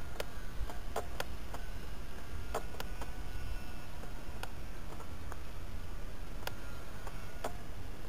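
Wind rumbling on the microphone, with irregular sharp clicks, about one or two a second, and a faint thin high whine.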